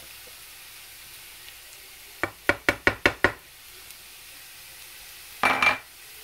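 Diced peppers and onion sizzling gently in a frying pan. A small dish is knocked against the pan about six times in quick succession to shake ground spices out, and a short scraping sound follows near the end.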